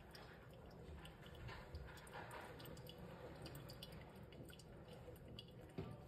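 Faint trickling and dripping of hot water from a gooseneck kettle through a pour-over coffee filter into a glass server.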